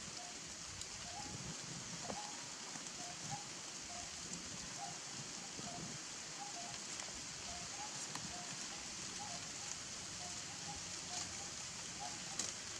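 A steady high hiss with a faint, even run of short chirping notes, about two a second, alternating between two pitches, like a bird calling over and over.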